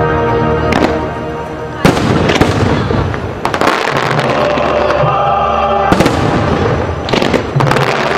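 Fireworks bursting over the show's music: several sharp bangs, the loudest about two seconds in and about six seconds in, each trailing off in a noisy smear, while steady music plays underneath.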